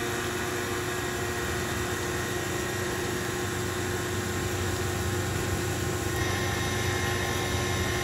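CNC milling machine making a finishing pass with an end mill on a steel knife blade held in a fourth-axis jig, under flood coolant: a steady spindle hum, cutting noise and the hiss of coolant spray. A higher steady tone joins about six seconds in.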